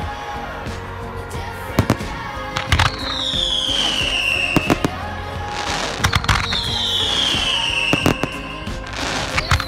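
Fireworks display: shells bursting in a string of sharp bangs, with two long high whistles that fall in pitch.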